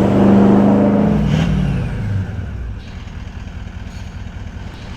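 Toyota LandCruiser 200 Series V8 turbo-diesel through a Legendex 2-into-1 stainless exhaust, held revved and then dropping back to a low, steady idle rumble about a second and a half in.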